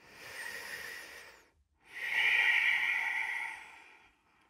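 A woman breathing deeply and audibly through the airway: two long, airy breaths, the second longer and louder.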